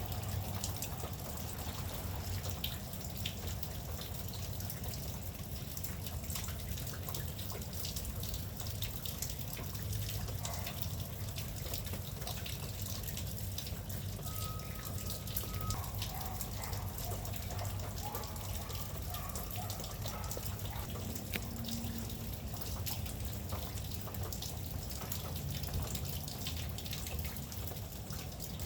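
Steady rain falling, with many small sharp drip ticks over a low rumble.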